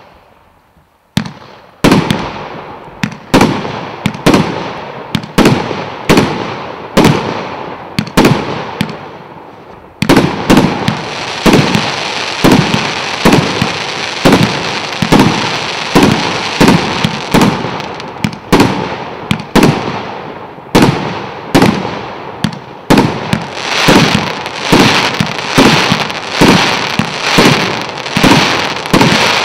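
A 1.2-inch, 49-shot consumer firework cake firing shot after shot, a sharp report roughly every second. From about ten seconds in a continuous crackle from crackling-star effects runs under the reports, and the shots come faster in the last several seconds.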